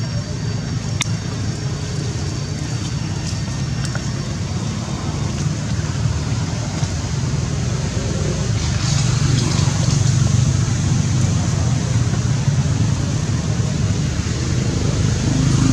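Steady low rumble with a hiss above it, swelling a little about eight seconds in, with a few faint clicks near the start.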